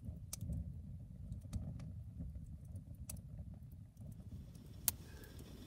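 Wind rumbling on the microphone, with a few sharp clicks and ticks at irregular intervals; the loudest click comes near the end.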